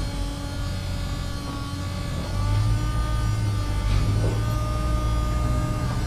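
A truck's engine runs as the truck drives slowly through a parking structure: a deep, steady rumble with a thin engine tone over it, growing a little louder about two and a half seconds in.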